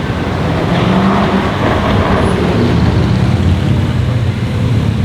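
Jaguar F-Type SVR's supercharged V8 running at low revs with a steady exhaust note, getting a little louder about a second in.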